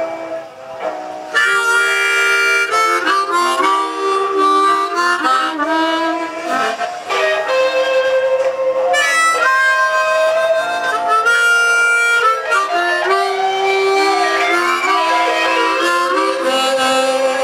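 Harmonica played solo with both hands cupped around it: a run of held notes and chords changing every fraction of a second.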